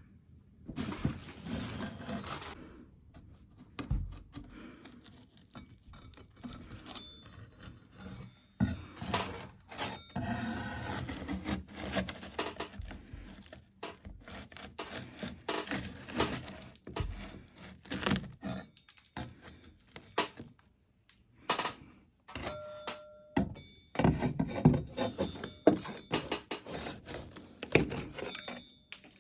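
A metal okonomiyaki spatula scraping a sand wall off, in irregular scrapes and knocks.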